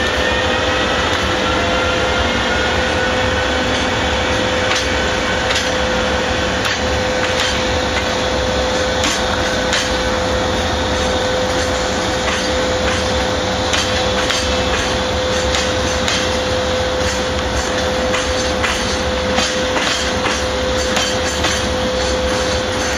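Freight train running past on the rails: a steady rumble of the wagons with repeated clicks of wheels over rail joints, under a steady tone. A rising whine fades out about a second in.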